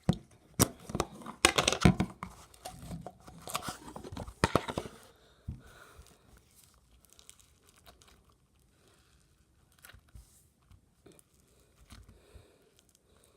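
Slime being squeezed and stretched by hand, giving dense crackling and popping clicks for about five seconds, then only a few faint clicks.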